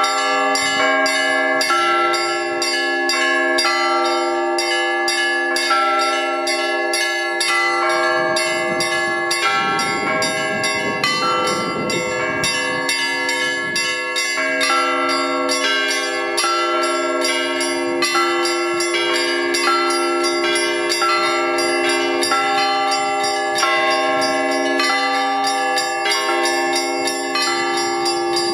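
Church bells ringing a peal: several bells of different pitches struck in quick, continuous succession over the sustained hum of a deep bell. A low rushing noise rises under the bells for a few seconds in the middle.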